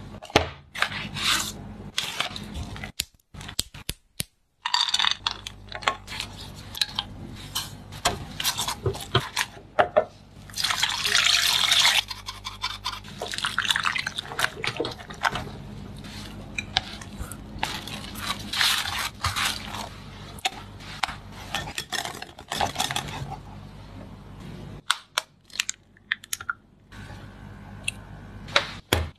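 Kitchen preparation sounds: utensils and containers clicking and knocking, a spatula or whisk scraping through a thick milk-and-cornstarch mixture in a saucepan, and liquid egg white pouring into a glass bowl, over a steady low hum.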